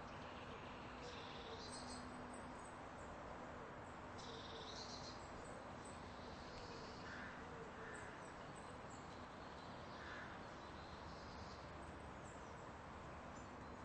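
Faint background hiss with scattered short, high chirps every few seconds; no bell is heard.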